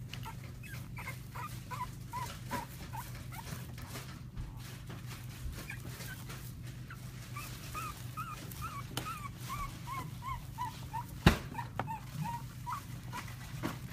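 Three-week-old French bulldog puppies squeaking and whimpering as they play-fight: runs of short, high squeaks, two or three a second, slowly falling in pitch. Under them is a steady low hum, and there is one sharp click about eleven seconds in.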